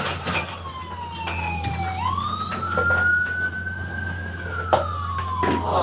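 A siren-like wailing tone that slides slowly down, jumps up about two seconds in and rises, then slides down again, over a steady low hum.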